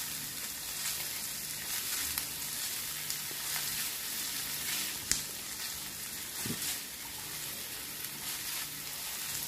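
Paneer bhurji sizzling in a hot cast iron skillet as a wooden spatula stirs and scrapes through it, with one sharp knock about five seconds in.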